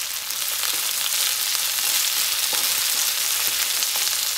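Chopped onion and garlic sizzling in hot oil in a kadhai, with a steady high hiss. A few light clicks come from a spoon stirring the onions in the pan.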